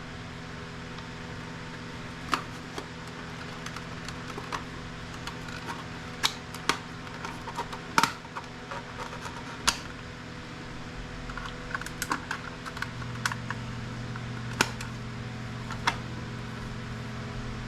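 Scattered light clicks and taps of hand tools on small plastic and metal parts as IT equipment is taken apart, over a steady low hum that grows a little louder about two-thirds of the way through.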